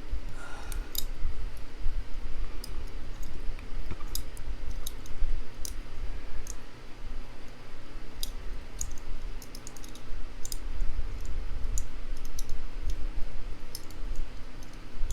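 Irregular small metal clicks and scrapes, with handling rumble, from hand tools working on a Master Lock H.D. 220 padlock as it is taken apart, turning a part that is tight.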